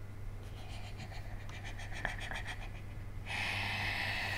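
A man's quick, breathy panting, about five short pulses a second, gives way about three seconds in to a long hissing breath. A faint steady low hum runs underneath.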